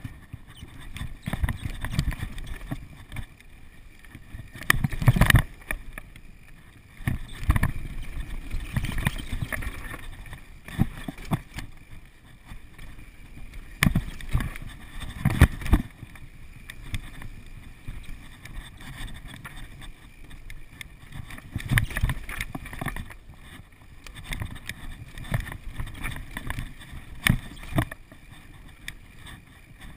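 Downhill mountain bike rattling and knocking as it rides fast over a rough dirt trail, with wind buffeting the microphone. There are heavy jolts from bumps and landings, the loudest about five seconds in and again around fifteen seconds.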